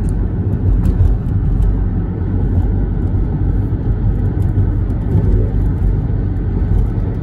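Steady low rumble of a car on the road: engine and road noise with no distinct events.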